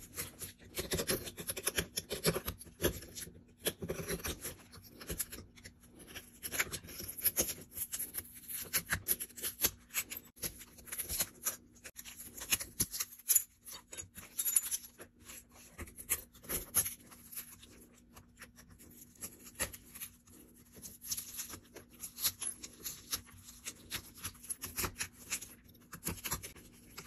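Shattered iPhone XR back glass being scraped and chipped off the phone's frame with a metal blade: an irregular run of crunching, scraping and small clicks as shards break away.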